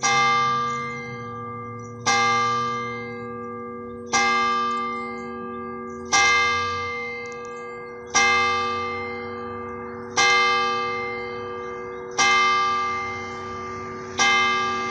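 A single church bell tolling, struck eight times at an even pace of about one stroke every two seconds, each stroke ringing on and fading before the next.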